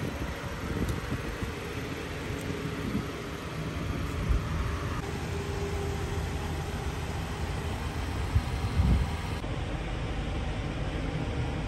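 2021 Dodge Journey SXT's 2.4-litre four-cylinder engine idling, a steady low rumble.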